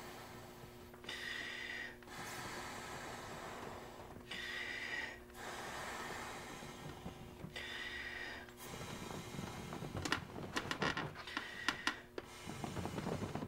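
Folding kayak's air sponson being blown up by mouth through a long hose: three rounds of a quick breath in followed by a long blow of air into the tube. In the last few seconds, a run of clicks and knocks.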